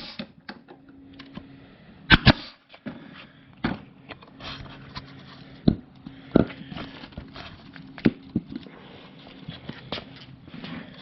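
Banks 18-gauge pneumatic narrow crown staple gun firing staples into wood: two sharp shots, one at the start and one about two seconds in, followed by lighter clicks and knocks, over a faint steady hum.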